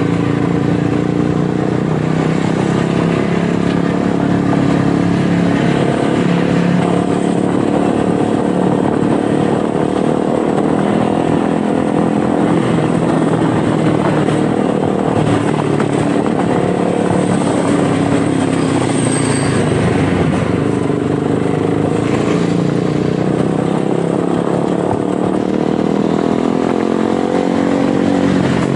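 Motorcycle engine running steadily while riding, its pitch drifting gently up and down with speed, over steady wind and road noise.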